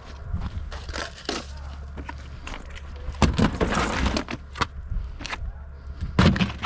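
Scrap metal being handled: a run of knocks and clanks, with a louder crash about three seconds in and another near the end, over a steady low hum.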